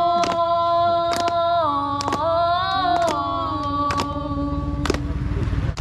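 A group of people clapping their hands in time, about once a second, while voices sing long, slowly changing held notes.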